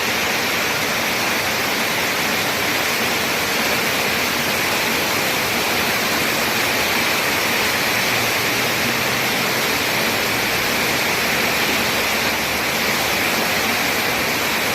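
Rain falling steadily, a dense even hiss with no breaks.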